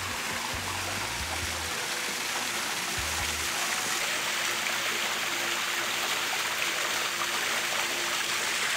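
Steady rush of running water, with a few low thumps in the first three seconds or so.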